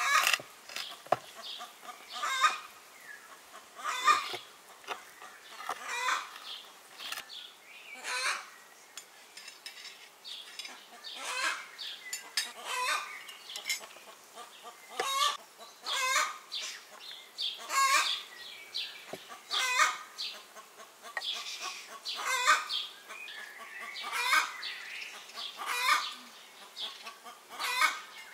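Chickens clucking: short, repeated calls about every two seconds.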